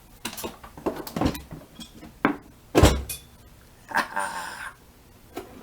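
Handling noises from a portable power box and its magnetic charging connector: scattered clicks and knocks, a heavier thump about three seconds in, and a short rattling scrape about a second later.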